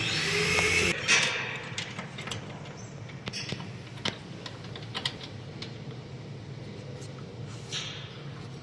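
A louder rushing noise that cuts off about a second in, followed by scattered light clicks and taps, a few seconds apart, over low background noise.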